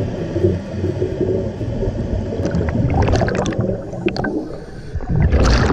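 Scuba diver's regulator breathing underwater, with the low rumbling gurgle of exhaled bubbles. There are a few short bubble bursts in the middle and a louder gush of bubbles near the end.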